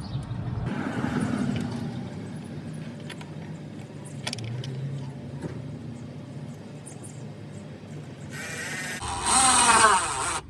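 Hand tools and small metal fasteners clicking and rattling while parts are fastened on the car, with a louder rattling, scraping stretch near the end.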